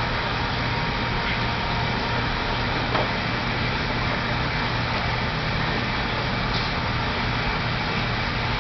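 Steady room noise: an even hum and hiss without change, with one faint knock about three seconds in.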